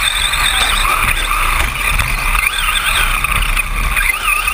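Electric motors of several 1/10-scale RC short course trucks whining as they race, several pitches overlapping and gliding up and down as the trucks accelerate and brake.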